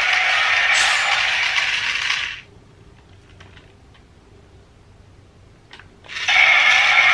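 Battery-powered DX Drill Crusher toy's motorized drill spinning, its small electric motor and plastic gears whirring with a rattle. It stops after about two seconds and starts again near the end.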